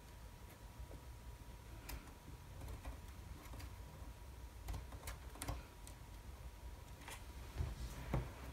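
Faint scattered clicks and light taps of fingers handling a wooden ship model while holding a thin strip in place, over a low steady hum and a faint steady tone.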